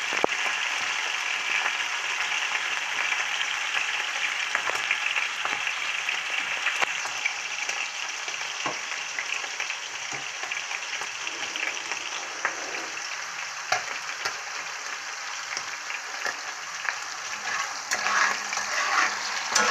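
Pieces of wild goat heart sizzling in hot vegetable oil in a thick-walled cast-iron frying pan, a steady frying hiss. A slotted spatula clicks and scrapes against the pan now and then as the pieces are stirred, more often near the end.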